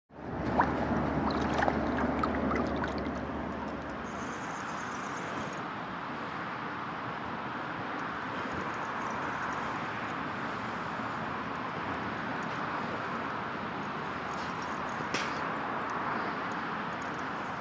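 Steady outdoor background noise with no clear source, with a few small clicks and knocks in the first three seconds and one more click about fifteen seconds in.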